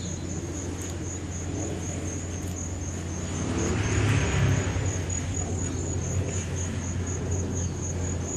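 A car passing on the street, swelling and fading about three to five seconds in, over a steady low hum of traffic. Insects keep up a high, evenly pulsing chirp.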